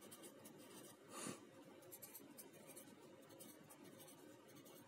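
Faint scratching of a felt-tip marker writing on paper in short strokes, with one brief louder hiss about a second in.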